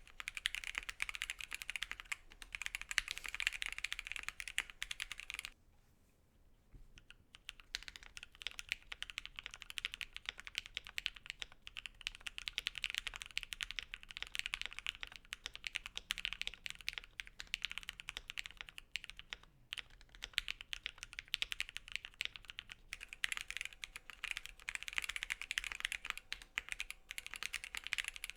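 Typing on a mechanical keyboard with JWK Dogikon linear switches: a dense run of key presses that stops for about two seconds after the first five seconds, then picks up again and keeps going.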